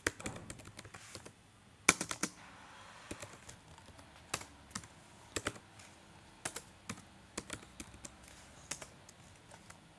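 Typing on a computer keyboard: irregular keystrokes in quick runs with short pauses, one keystroke about two seconds in louder than the rest.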